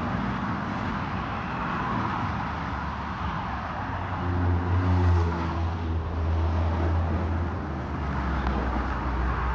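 Road traffic noise: a steady rush, with a vehicle engine's low drone coming up about four seconds in and fading near the end.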